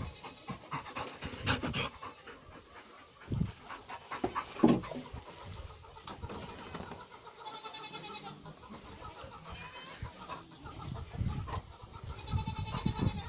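Goat kids bleating: a high, quavering bleat about halfway through and a longer one near the end, with a short faint call between them. Before that, rustling and a sharp knock from handling in the straw pen.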